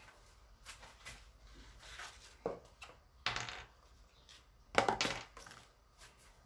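Quiet handling sounds as a stretchy running belt is put on: a few brief rustles and knocks, the loudest about two and a half, three and a half and five seconds in.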